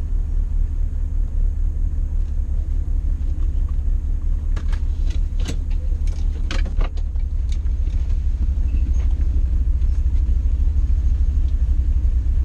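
Fiat car engine idling steadily, heard from inside the cabin, with a cluster of sharp clicks and rattles about halfway through as the driver gets out and the driver's door is opened.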